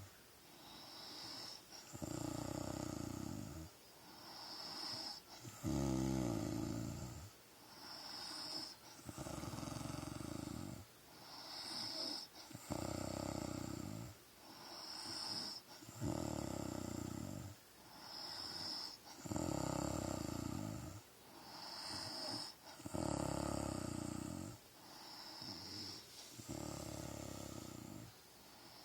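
A woman snoring in her sleep, in a steady rhythm of about eight breaths. Each breath is a loud, low snore followed by a short, hissing breath, about every three and a half seconds.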